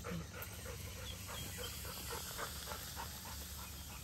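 Golden retriever panting quickly, about five short breaths a second, fading out near the end.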